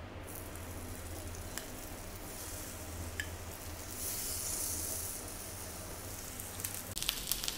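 Whole rice-flour-dredged red snapper sizzling in hot oil on a flat tawa as the fish are laid in. The hiss swells partway through and turns to sharper crackling spatters near the end.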